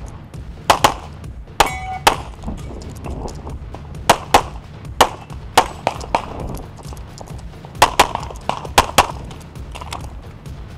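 CZ Shadow pistol shots during a practical-shooting stage run, fired mostly in quick pairs with short gaps as the shooter moves between positions. Near two seconds in, one hit is followed by a brief metallic ring from a steel target.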